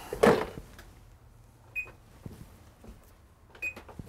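A brief handling noise near the start, then two short, high electronic beeps from a kitchen appliance's keypad, a little under two seconds apart.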